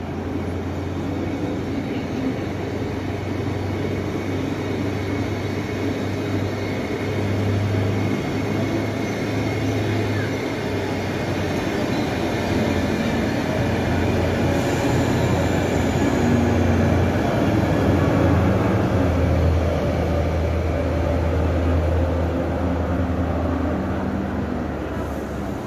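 Passenger train of coaches rolling slowly past along the platform: a steady rumble of wheels on rails with a low hum, growing louder to a peak about two-thirds through, then easing.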